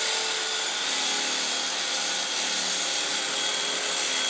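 Electric carving knife running steadily, its reciprocating blades sawing through a roll of paper towels.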